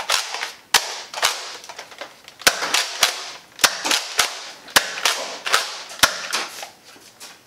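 Sharp plastic clacks from a Nerf Modulus Mediator blaster being handled and its mechanism worked, about ten clacks irregularly spaced, each with a short rattling tail.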